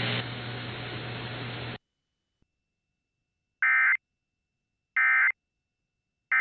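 Weather radio broadcast hiss and hum cut off suddenly about two seconds in. After a pause, the Emergency Alert System end-of-message (SAME) data bursts sound as short, identical electronic warbles about one and a third seconds apart: two whole ones, and a third starting at the very end.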